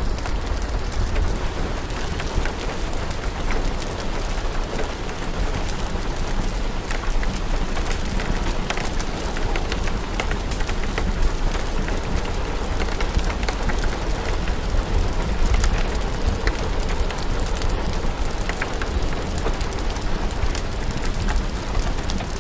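Steady rain with a deep low rumble, mixed with the small sharp crackles of a wood fire.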